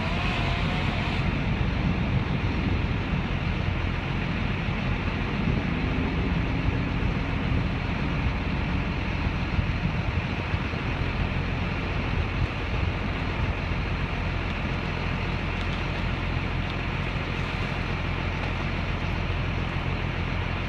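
An engine running steadily at a constant speed, with no pauses or revving.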